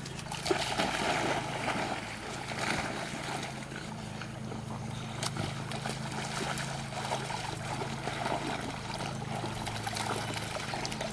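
Dogs splashing into and swimming through pond water, with a burst of splashing about half a second in as a dog goes in off the bank, then steady churning and paddling. A steady low hum runs underneath.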